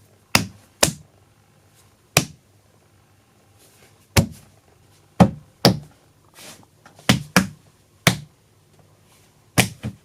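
Foley punch sounds: about ten heavy, sharp thuds of blows struck on a cloth-layered prop, several coming in quick pairs, made to stand in for big punches in a fight scene.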